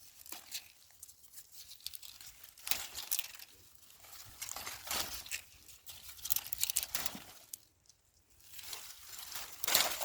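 Dry cowpea vines and leaves rustling and crackling in uneven bursts as cowpeas are picked by hand.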